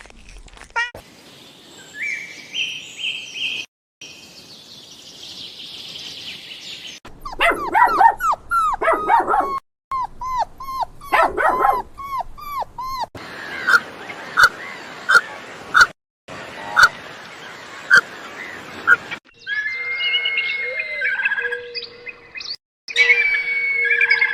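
A string of short animal-sound recordings joined by abrupt cuts, including a dog barking and birds calling.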